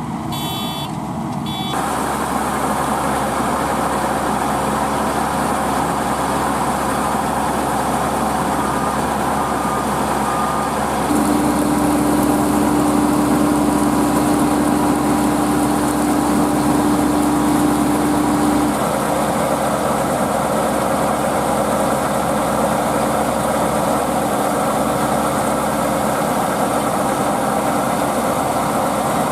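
Diesel engines of farm harvesting machinery running steadily under load, with a few short beeps in the first two seconds. A steady hum joins in about a third of the way through and cuts off around two-thirds of the way.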